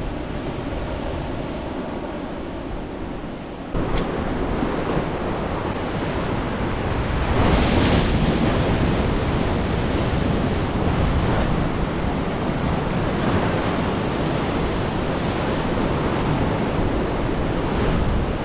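Ocean surf breaking and washing on a rocky shore, with wind on the microphone. It gets suddenly louder about four seconds in, and a bigger wave surges around eight seconds.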